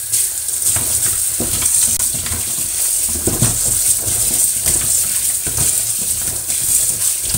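Kitchen tap water running into a stainless steel sink, turned on suddenly at the start, while hands rub and turn green peppers under the stream, with light knocks of peppers against the steel.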